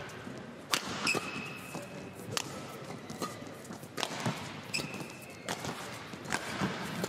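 Women's doubles badminton rally in a large hall: sharp racket strikes on the shuttlecock about once a second, with brief shoe squeaks on the court mat and footfalls.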